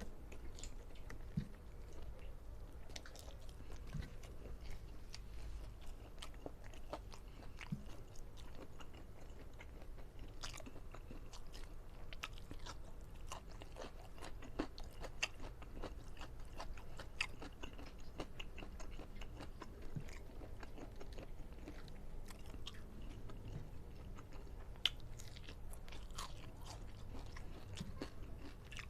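A person chewing and biting food close to the microphone, with many small scattered crunches and mouth clicks.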